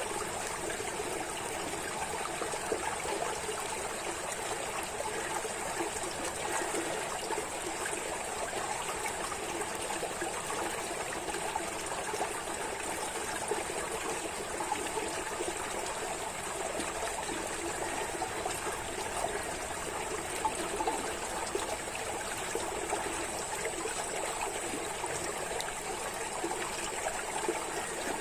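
Running water flowing and trickling steadily without a break, with a steady thin hiss high above it.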